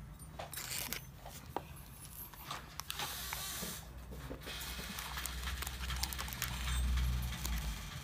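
Handling noise from unboxing an aluminium motorcycle cylinder block: plastic wrapping rustling, with light clicks and knocks as the part is turned in the hands. A low rumble builds in the second half and is loudest near the end.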